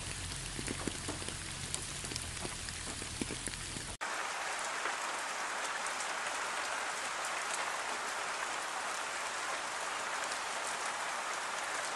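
Rain falling. For the first four seconds separate drops land close by over a faint low hum. Then it cuts abruptly to a denser, even rain hiss.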